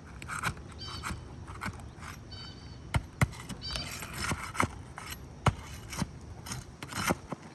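Hand-tool work under a stuck asphalt shingle, trying to break its seal: scraping with scattered sharp clicks and knocks, a few of them louder.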